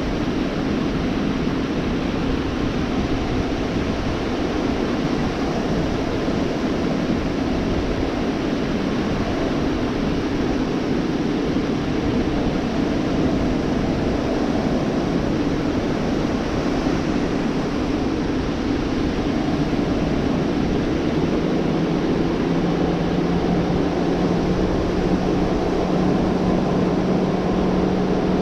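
Gulf of Mexico surf washing onto the beach as a continuous steady rush. A low steady hum joins in about two-thirds of the way through.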